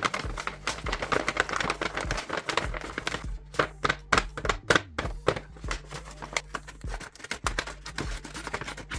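Background music over paper handling: irregular taps, clicks and crinkles of paper being handled and opened.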